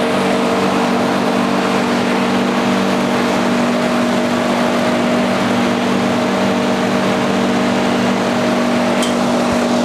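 Steady machine hum from refrigerated food machines running in the room: an even whirring noise with several constant low humming tones that do not change.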